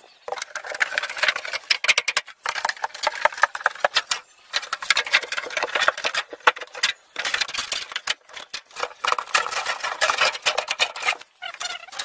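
Thin metal sheet crackling and rattling as the deep freezer's inner liner is pulled and bent away from its foam insulation: dense, irregular clicks with a few short breaks.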